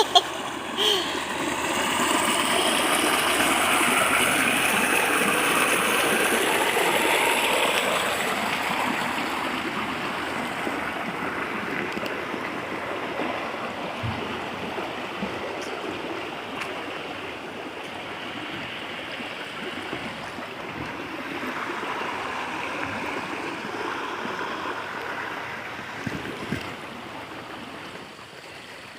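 Running water of a small spring-fed stream, a steady rushing that swells a couple of seconds in and then slowly fades away toward the end.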